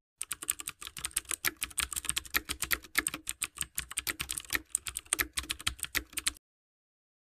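Computer keyboard typing, a rapid uneven run of key clicks that stops about six seconds in.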